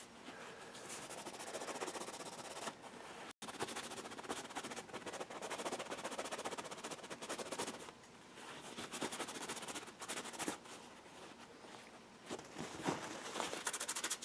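Paper towel rubbing and crinkling as it wipes oil and grease off an RC truck's slipper clutch pads: a scratchy, rapid crackle in several spells with short pauses.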